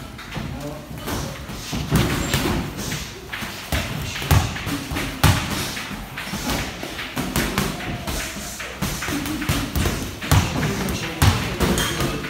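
Boxing gloves landing during sparring: irregular dull thumps of punches on gloves, headgear and body, with the hardest hits standing out a handful of times.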